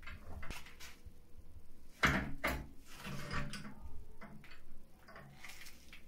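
Water-pump pliers clicking and scraping against the brass radiator valve as it is worked loose, with two sharp metal clanks close together about two seconds in and a few lighter clicks after.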